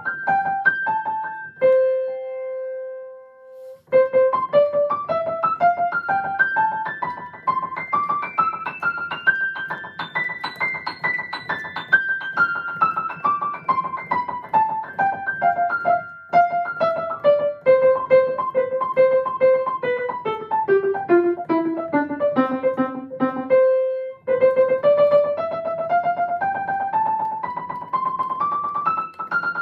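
Grand piano played in fast runs of notes with both hands. After a held note near the start, the run climbs for several seconds, comes back down, pauses briefly, and climbs again, as in scale warm-up practice.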